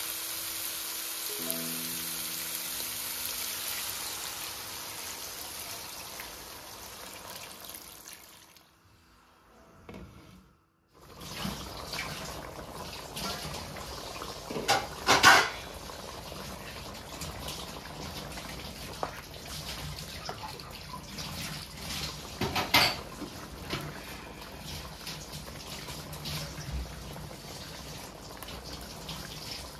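Mutton and masala sizzling as they fry in a wok, fading out. After a short break, the watery curry bubbles and simmers in the pan, with a couple of louder metal clinks from a ladle against the pan partway through.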